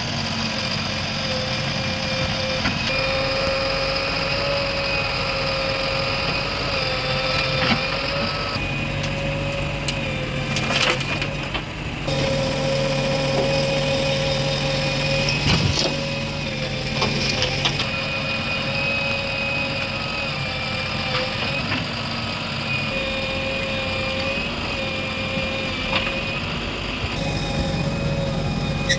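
Backhoe loader's diesel engine running steadily under working load, with a steady high whine over it and a few sharp knocks and clunks now and then.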